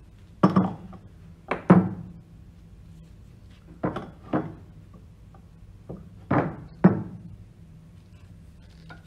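Metal split-coupling half and its bolts being set down and handled on a wooden bench: about eight sharp clunks of metal on wood, mostly in close pairs.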